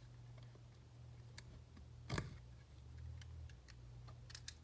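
Faint scattered clicks and ticks of a cardboard box being handled while its sealing sticker is cut, with one louder click about two seconds in, over a low steady hum.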